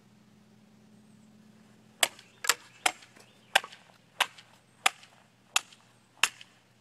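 A katana slicing through a standing pole of dry bamboo in quick successive diagonal cuts: a run of sharp cracks, roughly one every two-thirds of a second, starting about two seconds in.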